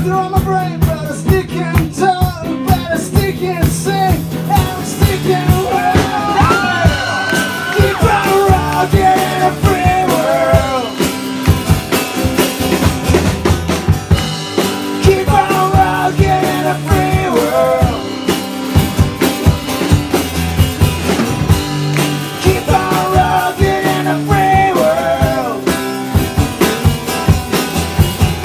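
Live band playing a rock song: drum kit, acoustic guitar and a second guitar, with a man singing lead in parts.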